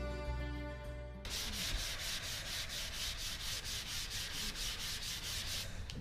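Background music cuts off about a second in. Sandpaper on a sanding block is then rubbed quickly back and forth over a carved wooden walking stick, about five strokes a second, stopping shortly before the end.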